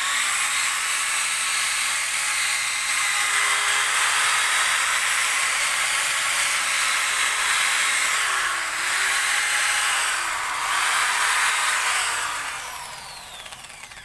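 Handheld electric rotary polisher with a foam pad running at speed against a plastic headlight lens, buffing it in a headlight restoration. Near the end the motor winds down with a falling whine.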